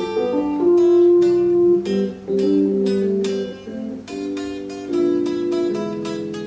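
Clean electric guitar playing a picked single-note melody over keyboard accompaniment, in a slow jazz-standard style.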